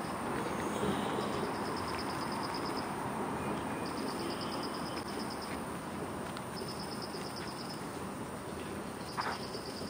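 Outdoor ambience: a steady hum of distant city noise. A high, rapid, pulsing trill repeats four times over it, each trill lasting a second or so.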